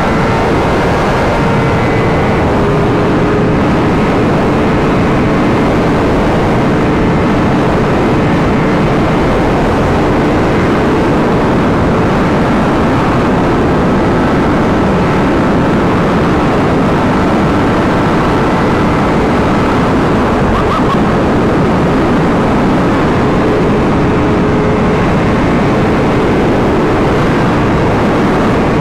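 Motorcycle riding at a steady cruise: a low engine tone under heavy, constant wind rush on the microphone.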